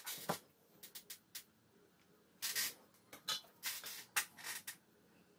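Handling noise from soldering a wire onto a relay module: a string of short, irregular clicks and rustles, thickest from about two and a half seconds in to near the end, as the wire and soldering iron are moved against the board.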